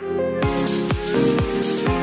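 Electronic background music: sustained synth notes, with a beat of kick drums about twice a second and bright hi-hats coming in about half a second in.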